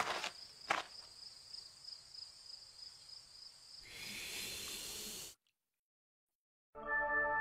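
Cartoon sound effects: two light footstep clicks at the start over a faint steady high-pitched tone, then a hissing sound about four seconds in that lasts a second and a half and cuts off into silence. Music with held tones comes in near the end.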